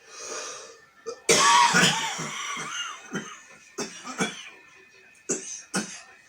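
A man's morning smoker's cough: a drawn breath in, then about a second in a long, loud coughing fit, followed by several shorter single coughs.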